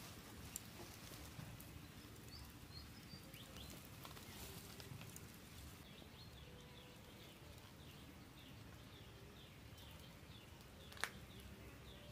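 Faint outdoor ambience with a low steady rumble, and a bird chirping in short, repeated falling notes, about two or three a second, through the middle. A single sharp click near the end.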